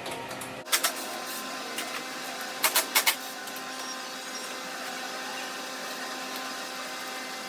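A steady electrical machine hum with a few sharp plastic clicks: a pair just under a second in and three quick ones about three seconds in, the sound of wiring connectors being snapped together to power LED snorkel lights.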